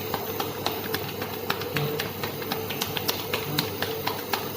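Irregular sharp clicks or taps, several a second, over a steady faint hum.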